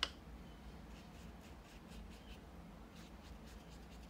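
Faint brushing of a paintbrush on paper: a run of short, quick strokes, opening with one sharp tap.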